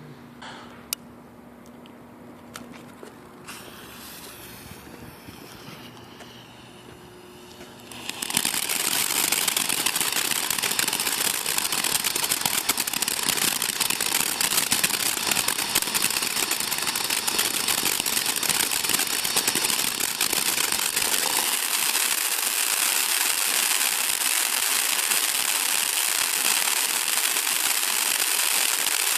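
Firework fountain: after a few quiet seconds with faint clicks it catches about eight seconds in and sprays with a steady, loud hiss and crackle.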